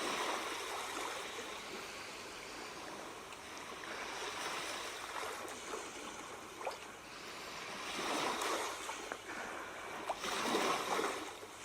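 Ocean waves washing on a shore, a steady surf hiss that swells and ebbs a few times.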